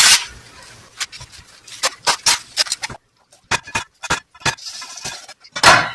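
Husks being torn off an ear of fresh corn and the silk pulled away: irregular crackling rips and snaps, with a louder rip near the end.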